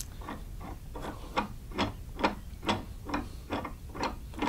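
Regular clicking, about two clicks a second, from a drill press vise's threaded drive screw being turned by hand to move the jaw. The clicks grow louder about a second in.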